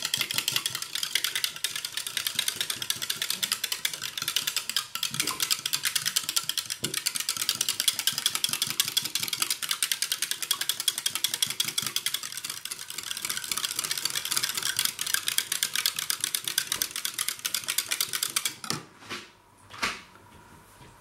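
Wire whisk beating eggs and milk in a clear jug: a fast, steady clatter of the wires against the sides. It stops about two seconds before the end, followed by a few light knocks as the whisk is left in the jug.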